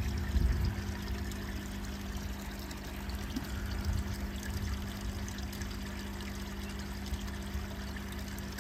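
Pond water pouring and trickling steadily, as from a koi pond's filter return, over a steady low hum.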